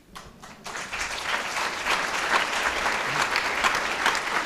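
Audience applauding: many hands clapping, starting thinly and building up within the first second, then holding steady.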